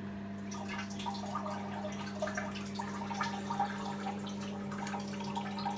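A person urinating into a toilet bowl, a light trickling and dripping of water, over a steady low hum.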